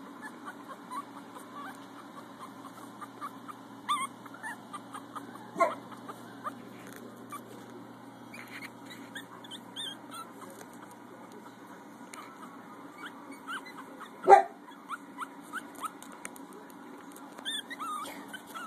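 Young puppies whimpering and squeaking, many short high cries throughout that come thicker near the end. A few louder, sharper sounds stand out, the loudest about fourteen seconds in.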